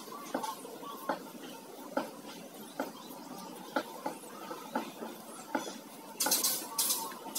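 Paintbrush working wood finish onto a wooden knife handle: light taps and clicks of brush and handle against the can, then from about six seconds in a run of quick, hissy bristle swishes, about three a second.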